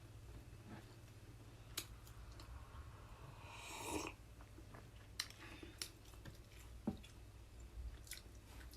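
Faint chewing and eating sounds, broken by a few sharp clicks and a short rustling swell about four seconds in.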